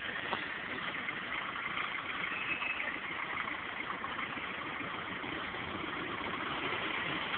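1989 Range Rover's 2.5 turbo-diesel engine running steadily as the vehicle crawls slowly through a muddy rut up a bank.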